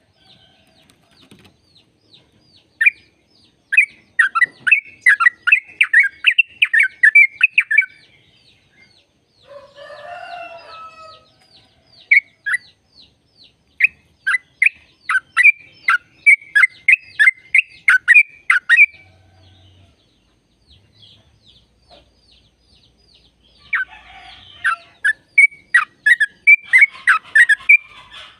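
Yellow-vented bulbul (trucukan) singing three bouts of rapid, repeated sharp notes, the fast chattering 'ropel' phrasing, with a faint high ticking behind it. A short, harsher, lower call comes between the first two bouts.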